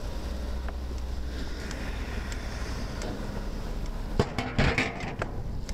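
Wind on the microphone and the rumble of a bicycle rolling along a paved path. About four seconds in, a short rattle of sharp clicks sounds as the bike rolls over a metal drain grate.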